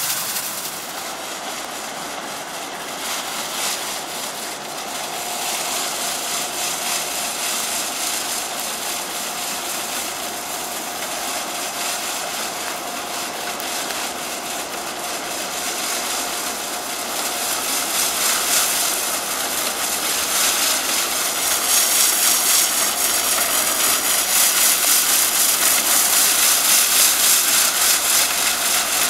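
Snow sweeper trolley's rotating broom spinning and throwing snow off the track: a steady whirring hiss that grows louder as the car approaches, with a fast, even pulsing in the last several seconds.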